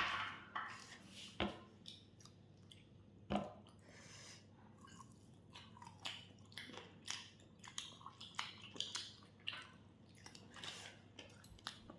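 A person chewing food close to the microphone: a quiet, irregular run of soft, wet mouth clicks and small crunches, a couple louder ones in the first few seconds.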